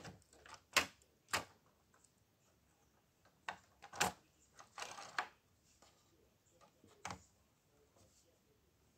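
Plastic LEGO pieces of the Galaxy Explorer set clicking and knocking together as the small wheeled rover is handled and set into the ship's bay. A handful of separate sharp clicks, loudest about a second in and about four seconds in, with a short rattle of clicks around five seconds and one more near seven seconds.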